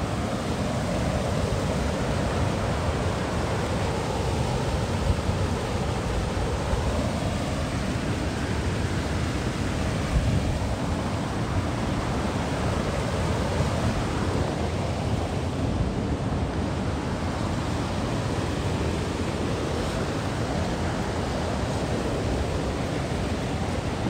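Steady rushing of river water at a waterfall, an even hiss that holds constant, with wind rumbling on the microphone.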